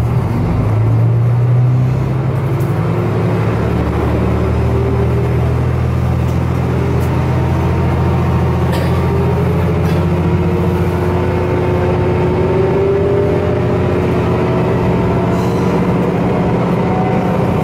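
Diesel railcar's engine running under power as the train pulls away and gathers speed, heard from inside the car: a steady low drone with a thin whine that slowly rises in pitch.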